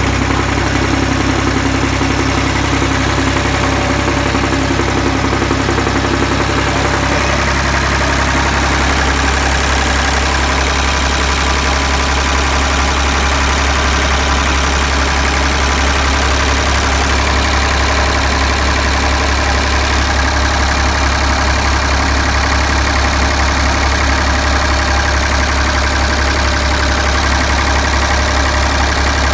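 Ford 2000 tractor engine idling steadily.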